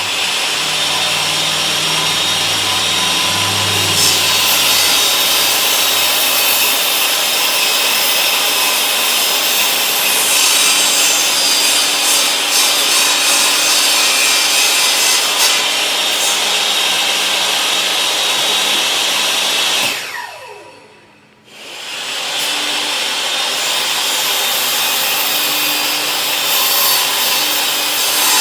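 Table saw cutting cedar board, running steadily under load. About twenty seconds in it is switched off and winds down with a falling pitch, then starts up again a second or so later.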